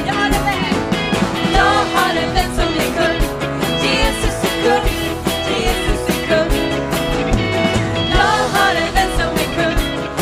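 Live worship band playing an upbeat song, with guitars, keyboard and a steady drum beat, and voices singing over it.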